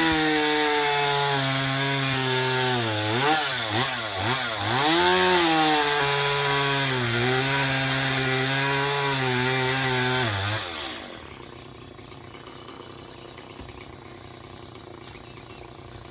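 Two-stroke chainsaw running at high throttle, easing off and revving back up twice about three to five seconds in. It winds down about ten and a half seconds in, leaving only a faint steady background.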